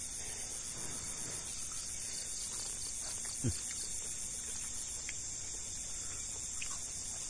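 Night insect chorus, crickets chirring steadily in a high, evenly pulsing drone. One short thump about halfway through.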